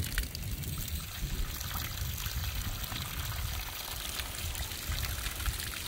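A steady jet of water from a garden hose buried in a dirt mound, arcing out and splashing onto the ground, over an uneven low rumble.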